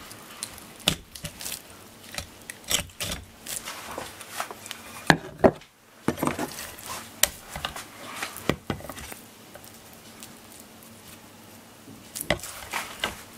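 Kitchen knife cutting a raw Japanese stargazer fillet and knocking and scraping on a wooden cutting board: irregular sharp taps and knocks, with a brief break about six seconds in.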